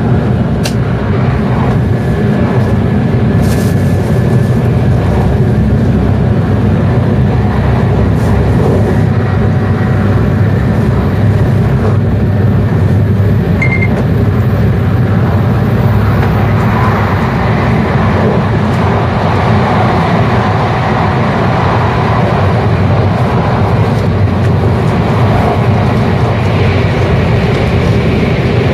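Steady running noise of an N700-series Shinkansen at about 200–214 km/h, heard inside the passenger car: an even, loud low rumble.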